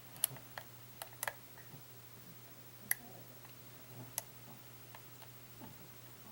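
Sharp, irregular metallic clicks of a lock pick and tension wrench working the pins of a pin-tumbler lock, about seven scattered clicks, as the picker fights to set the pins against a false set.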